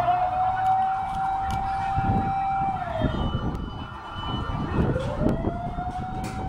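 Emergency vehicle siren wailing: the tone rises and holds steady, falls away about three seconds in, then winds up again near the end.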